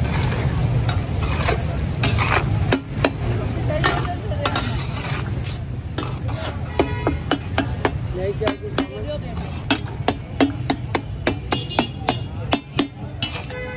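Metal spatula stirring and scraping food on a tawa (flat iron griddle) over a low steady rumble. From about halfway on come quick sharp clinks of metal on metal, several a second.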